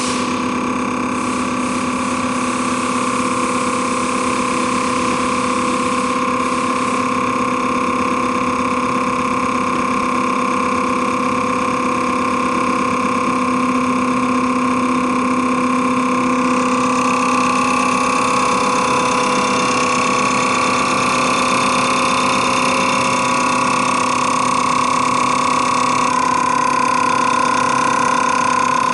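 CR926 common rail test bench running an injector test, its drive motor and high-pressure pump giving a steady mechanical whine with a few even tones. The pitch shifts slightly twice, the last time a few seconds before the end.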